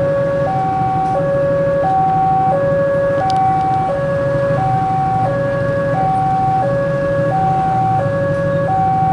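Railway level-crossing warning alarm sounding a steady two-tone hi-lo signal, each tone held about two-thirds of a second. The crossing is warning that a train is approaching.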